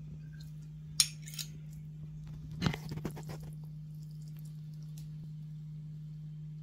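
Metal utensils clinking against a cast iron pan and a ceramic plate as spaghetti is served: one sharp clink about a second in, then a quick cluster of clinks nearly three seconds in. A steady low hum runs underneath.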